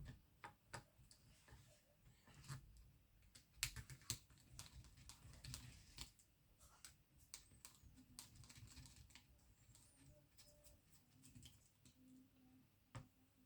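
Faint, scattered clicks and taps of small plastic and metal RC car parts and tools being handled, with a small cluster of sharper clicks about four seconds in.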